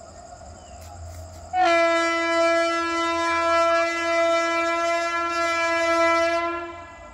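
A locomotive horn sounding one long, steady blast of about five seconds. It starts abruptly about a second and a half in and fades out near the end.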